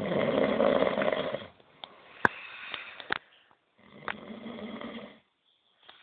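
Heavy snoring: a loud rattling snore for about a second and a half, a quieter breath, then a second rattling snore about four seconds in. A sharp click sounds just past two seconds.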